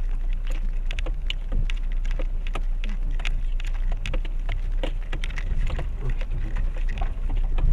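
Renault Duster crawling over a rough, rocky mountain dirt road in low first gear, heard from inside the cabin: a steady low rumble with many irregular sharp clicks and crunches as the tyres roll over stones.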